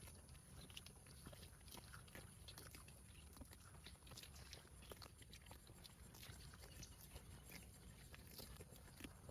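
Cow grazing: many short, irregular crunches and tearing sounds as it bites off and chews grass, faint over a steady low rumble.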